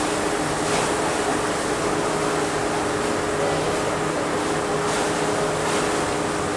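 Steady open-deck ambience on a cruise ship: an even hiss of wind and running water over a constant low hum of ship machinery.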